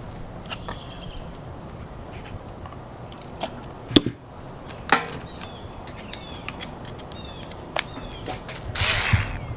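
Scattered sharp clicks and taps of small hand tools on the plastic A-arm and hub of an RC truck as the set screw is fitted, with a short scraping burst near the end.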